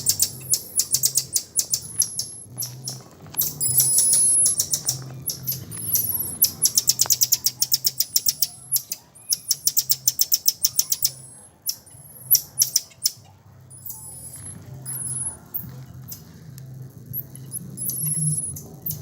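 High-pitched animal chirping: rapid clicking trills in runs of about a second, with short thin whistles between them.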